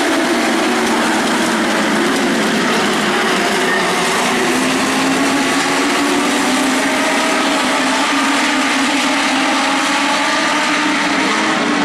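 A pack of Legends race cars running at speed, their Yamaha motorcycle engines at high revs. Several engine notes overlap and drift up and down in pitch as the cars go by.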